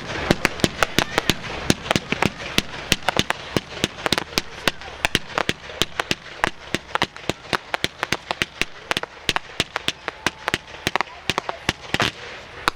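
Fireworks going off in a dense, irregular string of sharp crackling bangs, several a second.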